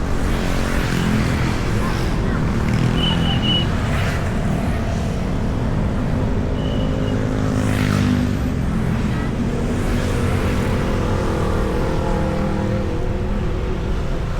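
Road traffic: motor vehicle engines running under a steady low noise, their pitch rising and falling as they speed up and slow down. Two short high beeps sound about three and seven seconds in.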